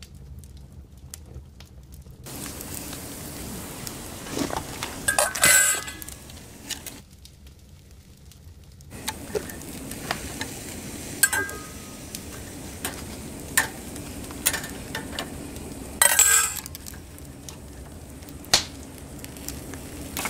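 Hinged wire grill basket of mushrooms and metal utensils clinking as they are handled off the coals: several sharp metallic clinks with brief ringing, over a steady sizzling hiss from the hot mushrooms.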